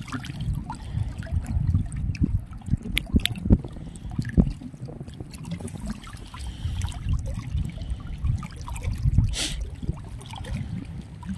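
Shallow water trickling and lapping among rocks, with a low rumble underneath and scattered small clicks. A brief sharper noise comes about nine and a half seconds in.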